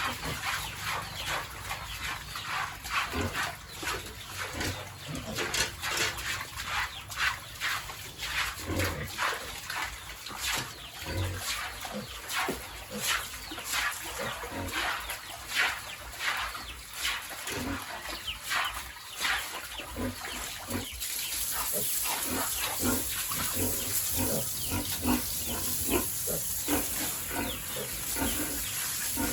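Pigs grunting and squealing in a pen, many short calls one after another. About two-thirds of the way through, a steady hiss joins them.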